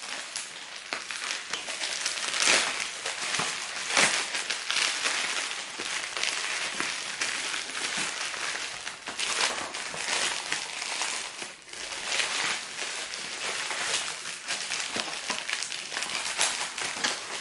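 Plastic mailer bag and bubble-wrap pouch crinkling and rustling as they are cut open with scissors and handled, in a steady stream of uneven crackles.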